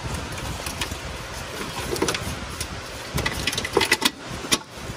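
Irregular metallic clicks and clinks of a hand tool on a 12 mm bolt as it is loosened and taken out of a metal battery tray. The clicks bunch together in the second half, over steady background noise.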